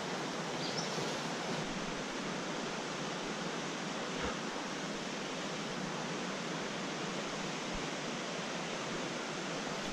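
Shallow mountain creek running over a rocky bed in riffles: a steady, even rush of water.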